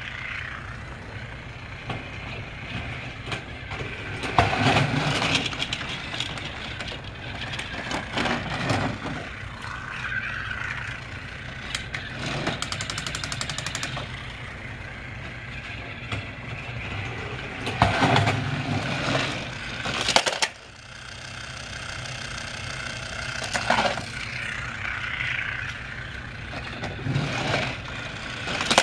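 Battery-powered Trackmaster toy train running on plastic track: a steady small-motor hum with irregular clacks and knocks, and a brief run of rapid ticking about halfway through.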